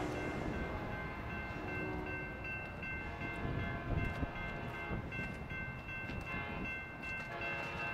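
Distant train horn sounding long, held multi-note blasts over a low rumble as a Sounder commuter train approaches.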